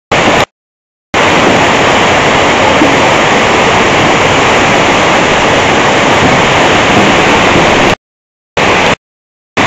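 Loud, steady rush of swollen brown floodwater pouring through a backyard stream channel. The sound cuts out abruptly to silence briefly near the start and twice near the end.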